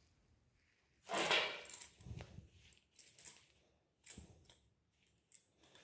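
Metal objects being handled: a run of short rattles and knocks, about one a second, the first the loudest.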